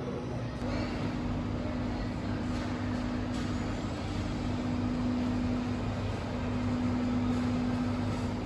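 A steady mechanical hum with a constant low tone over an even noise, unchanging throughout.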